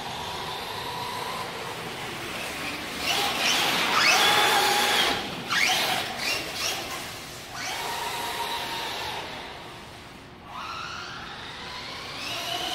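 Electric motors of Traxxas Slash 4x4 RC trucks whining as they rev and drift, the pitch rising and falling with the throttle and loudest about four seconds in.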